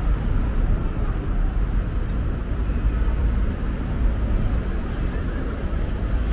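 Steady low rumble of busy city street noise with road traffic.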